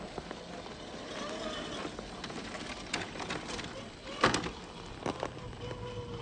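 1/10-scale RC rock crawler's tyres crunching and scrabbling over loose gravel and rock, with scattered clicks and one sharp knock about four seconds in, over a faint steady whine from its brushed 550 electric motor.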